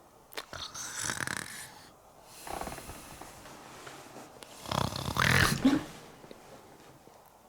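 Exaggerated comic snoring voiced for a puppet: three loud, rough snoring breaths, the last and loudest one ending in a short rising squeak.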